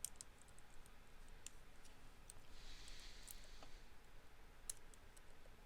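Faint, scattered clicks and a brief scrape about three seconds in, from a zip tie and tension bar working in the keyway of a steel shutter padlock.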